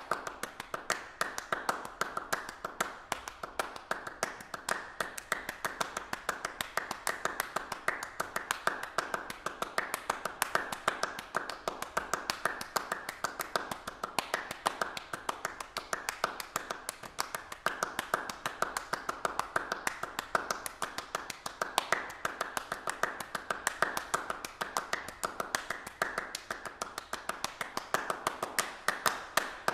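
Rapid, irregular tapping and clicking, several sharp taps a second, going on steadily.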